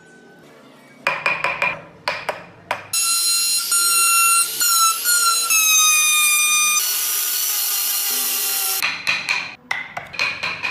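Woodworking tools: quick strokes of a hand tool on wood, then a small power tool's high whine for about four seconds, its pitch sagging, then about two seconds of harsher grinding noise. More quick hand-tool strokes follow near the end.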